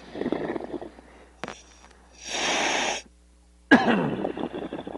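A diver breathing through the regulator of the diving gear, heard over the dive radio: bubbling exhaust at the start, a hissing breath in a little after two seconds, then bubbling exhaust again from near four seconds.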